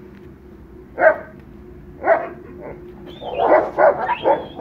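A dog barking in short single barks, first about a second apart, then a quicker run of five or six barks from about three seconds in.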